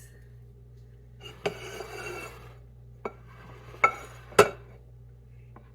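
Dishes being moved and set down on a countertop: a brief scrape about a second in, then a few sharp clinks with a short ring.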